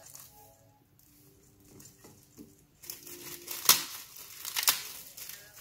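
Thin plastic food bag crinkling as it is squeezed and worked open by hand. The crinkling starts about three seconds in, with two sharp crackles about a second apart.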